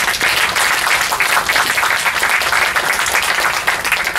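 Audience applauding: many hands clapping densely, thinning out near the end.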